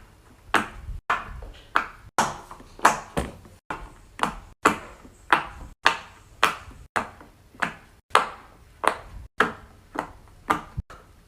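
Silicone pop-it fidget toys in animal shapes having their bubbles pressed one after another, a steady run of short pops about two a second.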